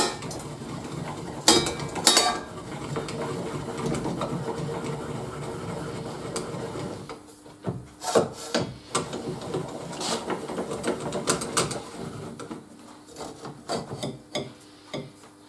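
A large steel circular saw blade being handled on a saw blade sharpening machine: metal clinks, knocks and scraping as the blade is fitted onto the arbor and turned by hand.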